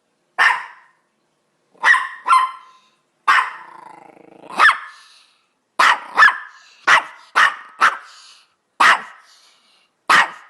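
Chihuahua barking: about a dozen short, sharp, high yaps, several in quick pairs, with a low growl rattling between barks a little after three seconds in.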